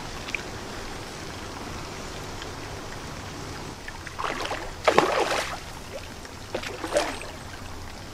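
A hooked mirror carp splashing at the surface close to the bank while being played. There are two bursts of splashing, the louder about five seconds in and a shorter one about seven seconds in.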